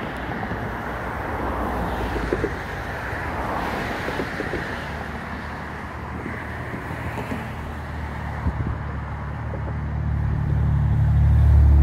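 Steady wind and road noise, then a car's engine and tyres swelling as it approaches and passes close near the end.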